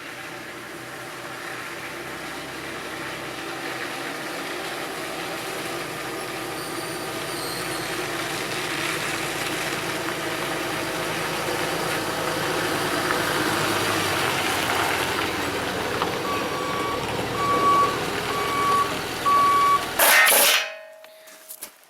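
A truck's engine growing steadily louder as it drives up, then its reversing alarm beeping four times, about once a second, as it backs in. A couple of loud bursts of noise near the end.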